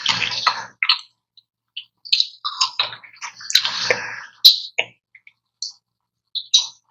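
Close-miked eating sounds: wet bites, smacks and slurps of ice cream in short irregular bursts. Three longer, louder noisy bursts come about three and a half seconds apart.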